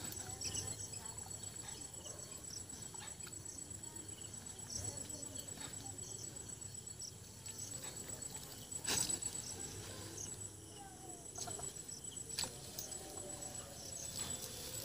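A steady, high-pitched insect trill pulses in the background, with faint splashing and dripping as a waterlogged sack is lifted out of a pond. A sharper splash or knock comes about nine seconds in.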